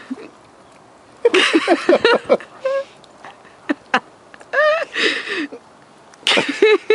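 Baby making short, wavering whimpers and breathy noises as a handful of snow is pressed to her mouth, her reaction to tasting cold snow.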